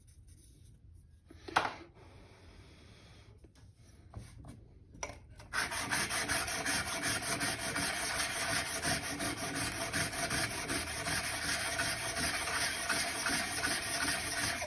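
Steel plane iron being rubbed back and forth on 600-grit abrasive, flattening the back of the blade: a sharp knock, a few light taps, then steady rapid scraping strokes from about six seconds in.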